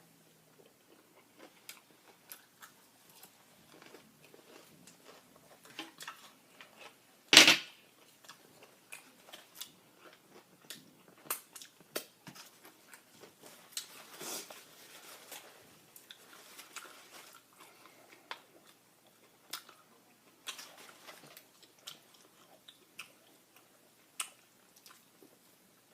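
Close-miked chewing and crunching of Popeyes fried chicken, a scatter of small crisp crunches and mouth clicks. One much louder sharp crunch comes about seven seconds in.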